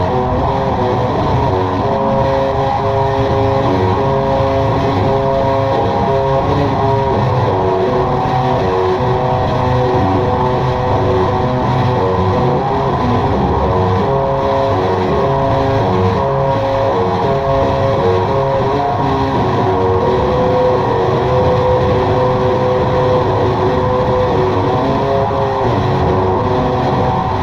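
Experimental drone music: a dense, loud wash of sustained tones whose pitches shift slowly over a rumbling low end, with no beat.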